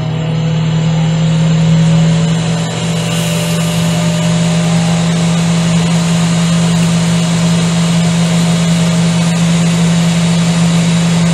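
Ninja Foodi indoor grill running in grill mode with the lid shut: its fan blowing with a steady hum and a rush of air.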